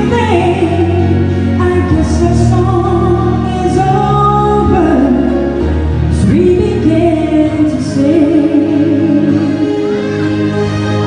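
A solo singer singing a slow song into a handheld microphone over instrumental accompaniment, heard through the PA.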